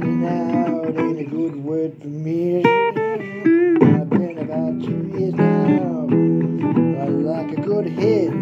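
Blues guitar playing an instrumental passage: strummed chords mixed with picked single notes, some of which slide or bend in pitch.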